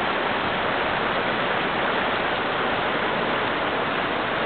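Steady rush of flowing river water, an even hiss that holds at one level throughout.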